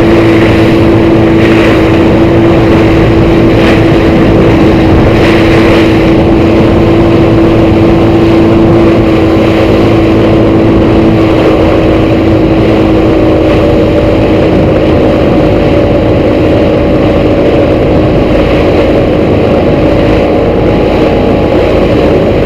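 Motorboat under way at speed: a steady engine drone, with a second, higher tone joining about halfway, over the rush of spray from the hull and wind.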